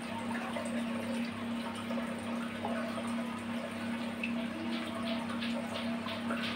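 Aquarium filter pump running with a steady low hum while water trickles and splashes into the tank, with faint drips and ticks in the second half.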